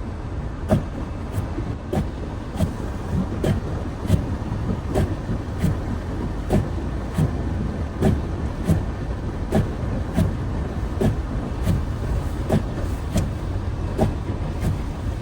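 Car cabin noise while driving: a steady low rumble from the road and engine, with a sharp click-thud repeating evenly about every two-thirds of a second.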